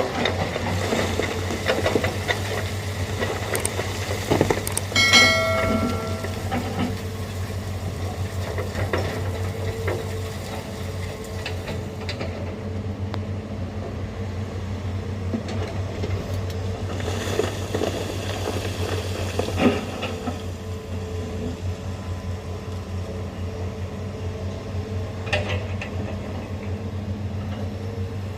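Heavy diesel engine running steadily with a constant low drone, with scattered knocks and a brief horn blast about five seconds in.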